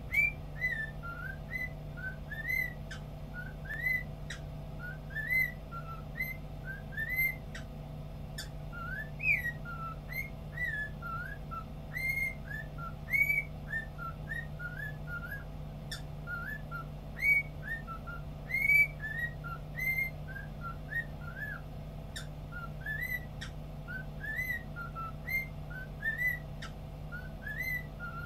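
Cockatiel whistling: a long, unbroken run of short rising and curling whistle notes, about two to three a second.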